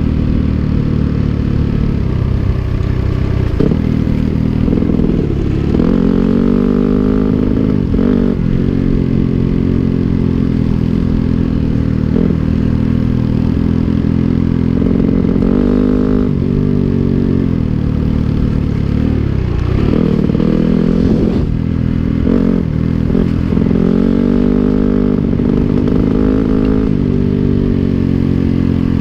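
Dirt bike engine riding on a dirt road, its pitch rising and falling again and again as the throttle opens and closes and the rider shifts.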